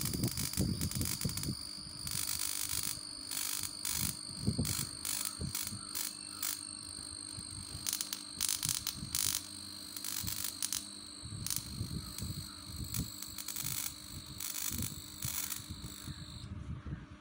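Homemade flyback-transformer high-voltage generator running with a steady high-pitched whine, its high-voltage lead crackling with irregular sparks as it is held near the terminal. The whine cuts off suddenly near the end.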